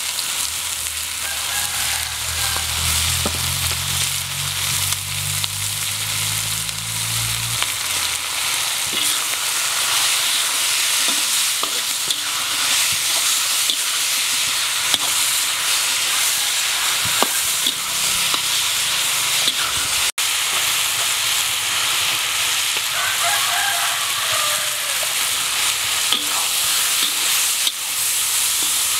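Minced meat sizzling steadily in hot oil in a wok while a metal spatula stirs and scrapes it, with occasional light scrapes and clacks of the spatula on the pan. A low hum sounds under the sizzle for the first seven seconds or so.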